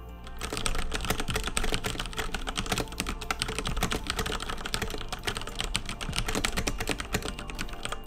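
Fast typing on a Cougar Attack X3 mechanical keyboard with Cherry MX Red linear switches: a dense, continuous run of key clacks that starts about half a second in. Background music plays underneath.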